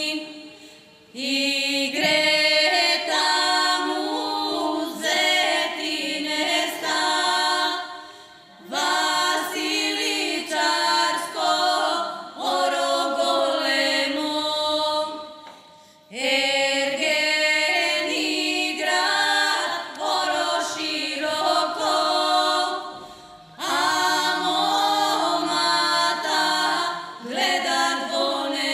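Three women singing a Macedonian folk song unaccompanied in close harmony, a steady lower note held under the tune. The song goes in long phrases with brief breaks between them, about four in all.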